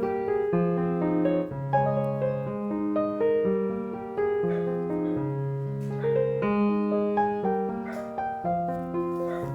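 Background piano music: a gentle melody of sustained notes over a repeating bass line.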